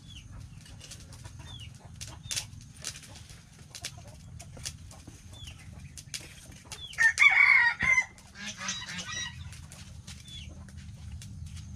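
A rooster crows once, the loudest sound, about seven seconds in, with chickens clucking around it. Short high chirps recur every second or two, with light scattered clicks.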